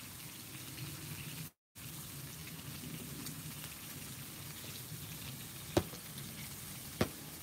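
Bacon strips and burger patties sizzling on a Blackstone flat-top griddle, a steady frying hiss, with two sharp pops near the end. The sound cuts out for a moment about a second and a half in.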